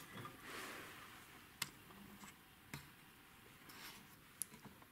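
Faint handling sounds of circuit boards being held and moved: a soft rustle and a few small sharp clicks, about three in all.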